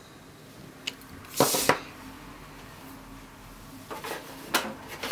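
Handling noises of a clear acrylic stamp block and cardstock on a cutting mat: a short scraping rustle about a second and a half in, and a few light clicks near the end as the block is set down.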